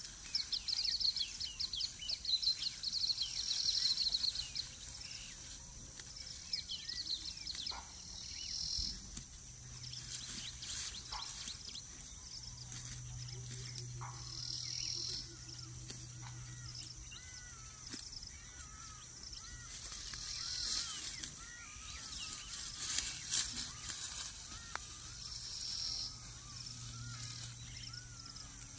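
Tropical outdoor ambience: a steady high insect chorus with bursts of high chirping birdsong, dense in the first few seconds and then returning every five or six seconds. Short arched bird calls repeat through the second half, and a low steady hum comes in about ten seconds in.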